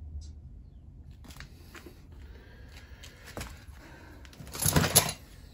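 Workbench handling noises: a few light clicks and knocks, then a brief, louder rattle and rustle of tools being moved a little before the end.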